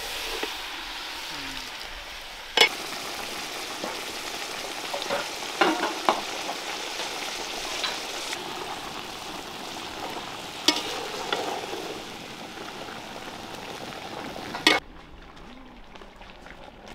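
Drumstick pods and spice masala sizzling in a large kadai with water just poured in, while a metal ladle stirs and knocks sharply against the pan a few times. The sizzling stops abruptly near the end.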